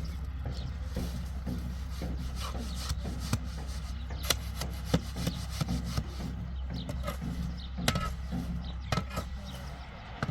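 Tools scraping and knocking on wet concrete, with sharp knocks now and then, over a steady low motor hum.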